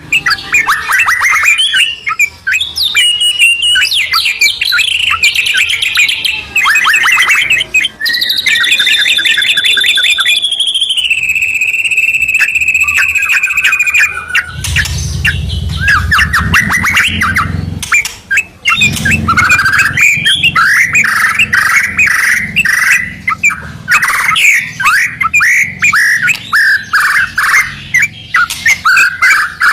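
White-rumped shama and yellow-vented bulbul singing loudly together in rapid, varied phrases, with one long trill held for several seconds about a third of the way in. A low rumble sits under the song around the middle.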